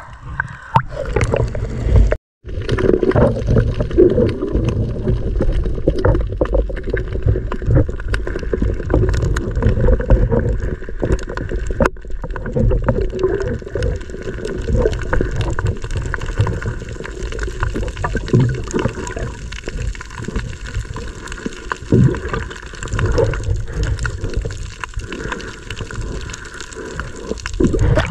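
Muffled sloshing and gurgling of water around a GoPro camera held underwater while diving, with small knocks and scrapes from handling a crab net on the sea floor. The sound cuts out briefly about two seconds in.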